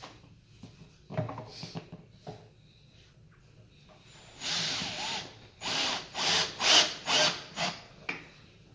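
Power drill driving screws into a wooden chair frame to fasten the upholstered seat. Light handling knocks come first, then about halfway through one longer run of the drill, followed by several short bursts.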